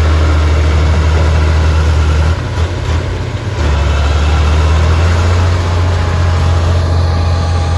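Komatsu PC200 excavator's diesel engine running steadily with a deep hum. The sound dips briefly a little past two seconds in, then comes back up to full level about a second later.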